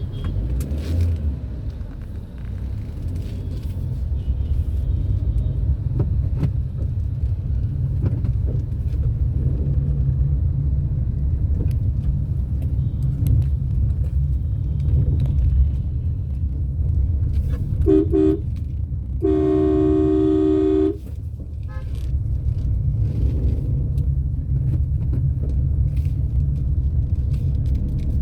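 Steady low rumble of a car being driven, with a short car-horn beep near the middle, followed a second later by a longer horn blast lasting about a second and a half.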